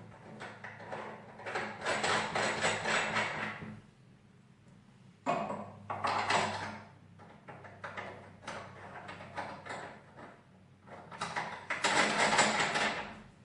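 Small screws being driven into a door's latch fitting: three runs of a couple of seconds each, with scattered clicks and knocks between.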